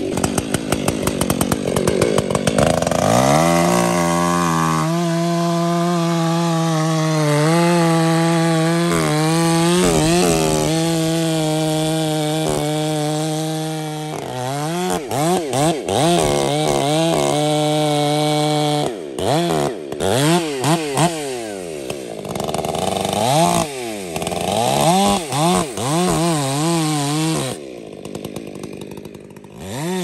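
Two-stroke chainsaw cutting into a dead cottonwood trunk for a felling cut. It starts out idling, is revved up about three seconds in and held at steady high revs for about ten seconds, then is revved up and down repeatedly with short drops in level.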